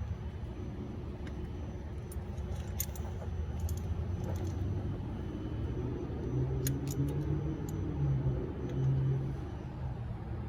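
Light metallic clinks and taps of tools and engine parts being handled while a timing chain guide is fitted, scattered over a steady low background rumble.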